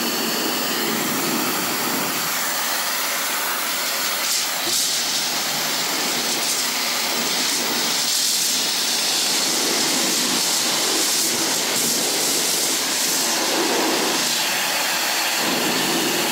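Roidmi Miro high-speed hair dryer running: a steady rush of blown air with a strong high hiss. A lower whoosh under it swells and fades several times.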